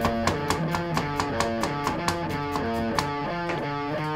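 Rapid knife chops on a plastic cutting board, a kitchen knife mincing garlic at about four to five strokes a second, stopping about three seconds in. Background guitar music plays throughout.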